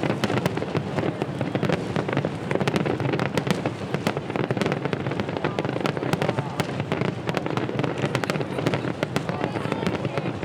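Aerial fireworks going off in a dense, unbroken barrage: many sharp bangs and crackles a second over a continuous rumble.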